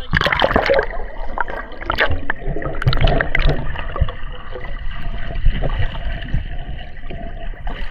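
Seawater sloshing and gurgling close to the microphone, with irregular splashes and knocks.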